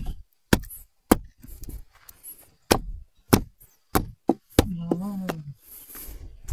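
Sharp knocks on wood, about eight irregularly spaced strikes, with a brief vocal sound about five seconds in.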